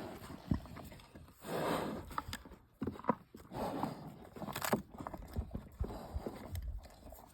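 Zebu cattle eating snacks: irregular crunching and breathy noises with a few sharp clicks and knocks.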